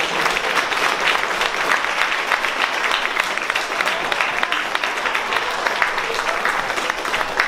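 Theatre audience applauding steadily, a dense patter of many hands clapping at the curtain call.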